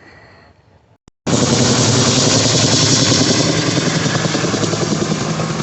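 A large engine running loudly and steadily, cutting in abruptly about a second in.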